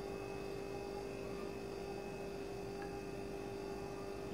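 Quiet room tone with a steady electrical hum.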